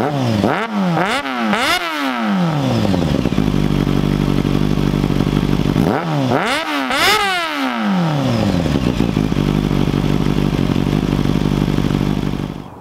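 Honda CBR600 F4i inline-four motorcycle engine idling and being blipped through its exhaust. There are three quick revs in a row about half a second in, each settling back to idle, then two more revs about six seconds in. The sound cuts off suddenly just before the end.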